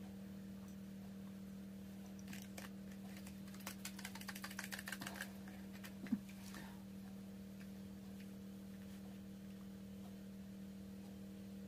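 A steady low electrical hum, with a run of quick light clicks and ticks starting a couple of seconds in and lasting about three seconds, and one sharper click about six seconds in.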